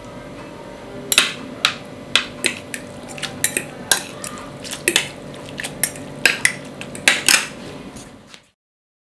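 A metal fork and spoon clinking against a bowl as instant curry noodles in broth are stirred and mixed, with irregular clinks about once or twice a second. The sound cuts off abruptly near the end.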